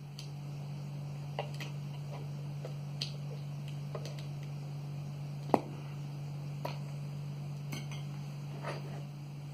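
Scattered light clicks and taps as an ORP meter probe and the glasses and equipment on the table are handled, the sharpest about five and a half seconds in, over a steady low hum.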